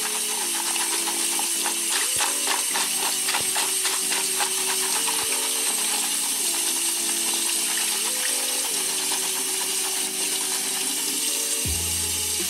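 Background music: a simple stepped melody with a quick tapping beat in the first half, over the steady hiss of a kitchen tap running onto vegetables in a plastic colander.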